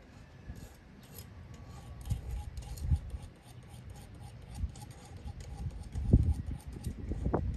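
Handling noise from a handheld camera: low irregular thumps and rubbing on the microphone, with faint scraping and clicks, the strongest thumps about three and six seconds in and just before the end.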